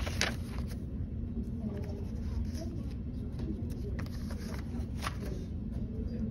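Paper pages of a spiral-bound notebook being turned: two rustling swishes, one just after the start and one about five seconds in, over a steady low hum.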